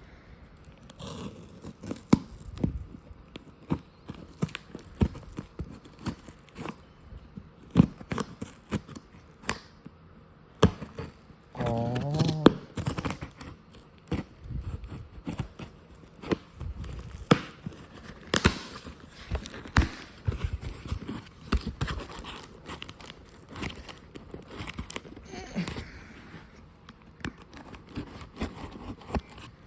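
A cardboard shipping box being opened by hand: irregular cutting, tearing and crinkling of tape and packaging, with scattered knocks and taps. A brief pitched sound comes about twelve seconds in.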